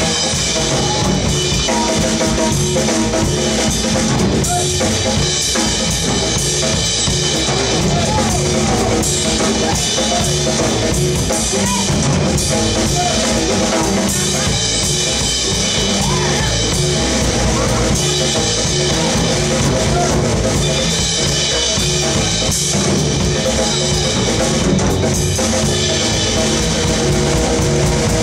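Live band playing, with a drum kit driving the beat and an upright double bass.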